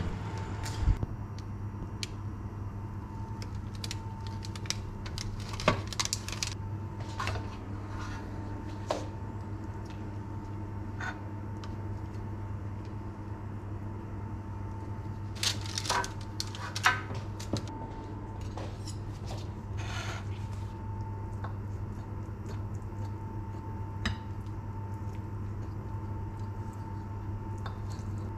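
Scattered clinks and clatters of kitchenware: a metal baking tray, a spatula and a ceramic plate knocking together while food is served, with a knife and fork on the plate near the end. A steady low hum with a faint thin whine runs underneath.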